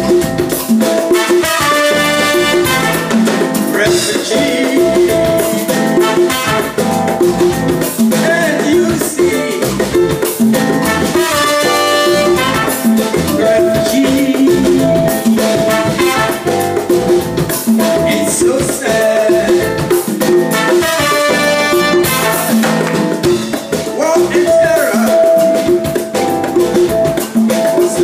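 A live highlife/afrobeat band plays an instrumental passage: electric guitar, keyboard, drum kit, congas and horns, with horn riffs returning every several seconds over a steady groove.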